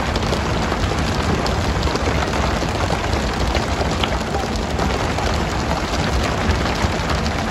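Steady rain-like hiss of water spray and tuna splashing at the surface beside a pole-and-line fishing boat, with a low rumble underneath.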